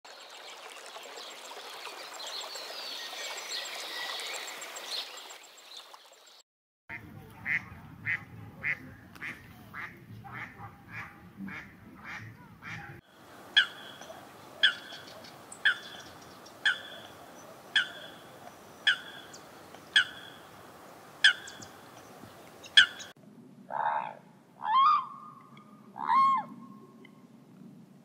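A flock of mallards quacking together, then a run of quicker single quacks about three a second. From about halfway through, a Eurasian coot gives short, sharp calls about once a second, followed near the end by three louder, lower calls.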